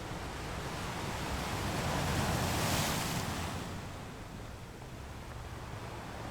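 Sea waves washing, one wave swelling to a rushing peak about halfway through and then fading, over a steady low rumble.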